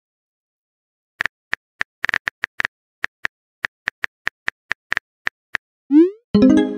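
Smartphone on-screen keyboard key clicks, tapped at an uneven pace starting about a second in. Near the end comes a quick rising swoop tone and a short pitched alert, the sound of a message being sent or arriving.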